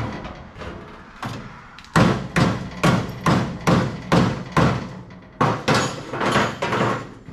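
A hammer striking the steel trunk floor pan of a 1970 Cuda body. One knock comes first, then from about two seconds in a steady run of about a dozen blows at roughly two a second, knocking the panel into place so it fits.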